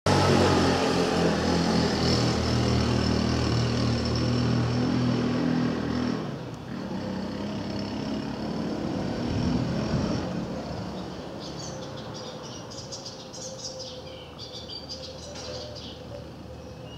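Drone of the T-41D Mescalero's piston engine and propeller flying overhead. It is loud at first, drops suddenly about six seconds in, swells again briefly, then fades. Birds chirp from about two-thirds of the way through.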